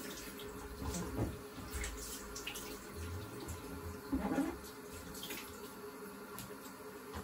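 Water running from a bathroom sink tap, with splashing as it is used for rinsing after a shave, louder about a second in and again about four seconds in.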